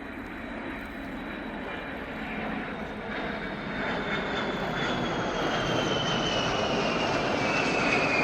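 Jet aircraft flying past, its engine noise growing steadily louder with a high whine that falls slowly in pitch.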